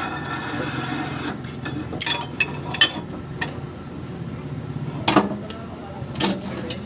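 Metal tools and parts clanking sharply a handful of times, over a steady low motor or engine hum.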